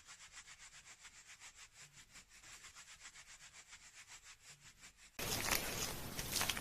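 Fingers scrubbing a person's scalp and hair during a shampoo. At first it is faint and quick, about five rubbing strokes a second. About five seconds in, much louder scrubbing starts abruptly.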